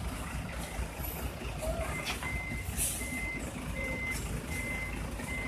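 A bus's reversing alarm beeping in a single steady tone at an even pace, about four beeps every three seconds, starting about two seconds in, over the low rumble of the running engine.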